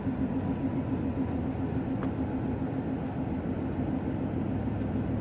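Steady road and engine noise of a car driving at speed, heard inside the cabin: a constant low hum with a slight pulsing rumble.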